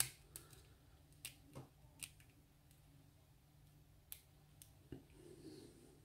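Faint, sharp clicks of a lock pick and tension wrench working in the keyway of an Abus 72/40 padlock during picking, about eight scattered over six seconds, the loudest at the very start.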